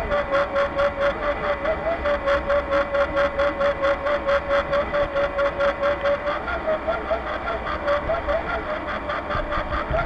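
Drive of a model Voith-Schneider tug running steadily, a whirring with a steady tone and a regular pulse about four to five times a second, the tone wavering slightly in pitch now and then.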